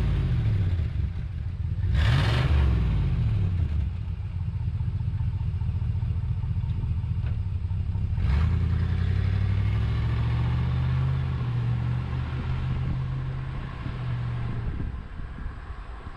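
1964 Plymouth Barracuda's 273 cubic-inch V8 revving briefly about two seconds in, then pulling away and running steadily as the car drives off, fading near the end.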